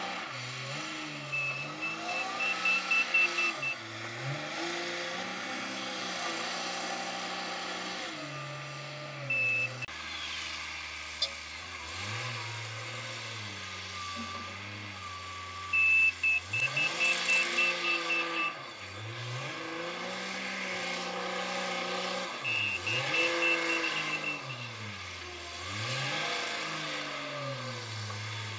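Komatsu WA350 wheel loader's diesel engine revving up and down through its sand-loading cycles, with four bursts of rapid reversing beeps, about four a second, as it backs away; the uploader finds this reversing sound strange. The loudest moment is about two-thirds of the way through, where a beep burst comes with heavy engine noise.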